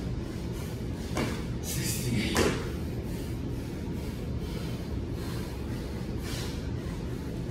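Sounds of a man doing burpees: hard breaths and the knocks of his hands and feet on the concrete floor, the loudest about one and two seconds in. Under them runs a steady low hum.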